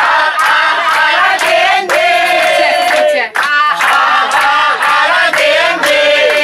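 A group of people singing a song together with many voices at once, clapping their hands along in time.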